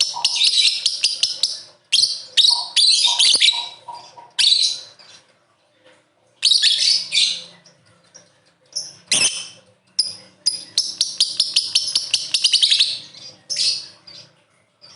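Lovebird chattering in repeated harsh, high-pitched bursts, with a long rapid rattling run of notes about ten seconds in: the 'ngekek' chatter song. A single sharp click sounds just before that run.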